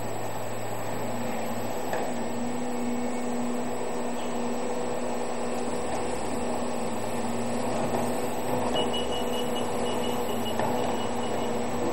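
Heavy hydraulic foundation rig's engine and hydraulics running with a steady, even hum, with a few faint knocks from the working tool.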